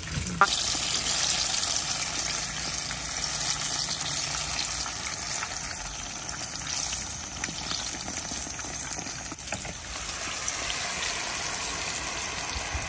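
Battered banana pieces deep-frying in a pan of hot oil: a steady sizzling hiss. A sharp knock about half a second in.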